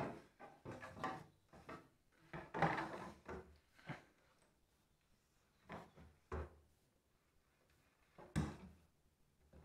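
Irregular knocks and rubs of a plastic waste pipe being worked into place between wooden floor joists and knocking against the timber. The loudest knocks come a few seconds in, about halfway, and near the end.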